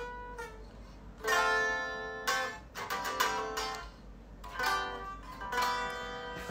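Electric guitar played with a clean tone: a few single picked notes, then chords struck about a second in and again near the end, each left to ring.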